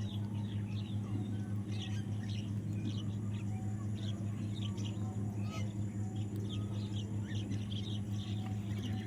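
Baby parrot chirping in many short, rapid calls, over a steady low hum.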